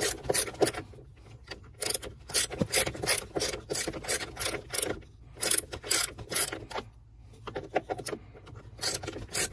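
Ratchet wrench with a 10 mm extended socket clicking in quick runs as a bolt is worked loose, with short pauses between runs.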